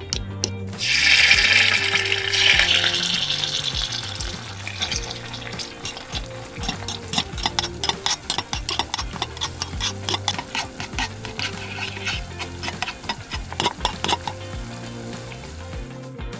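Tomato sauce hitting hot oil in a tiny brass wok: a loud sizzle starts about a second in and fades over a few seconds, then turns to crackling and quick spoon clicks as the sauce is stirred. Background music underneath.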